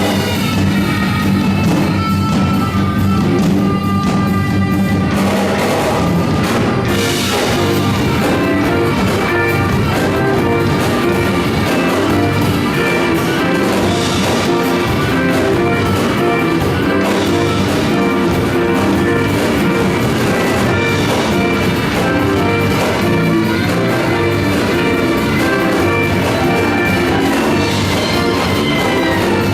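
Music with instruments and a drum beat, fuller from about six seconds in.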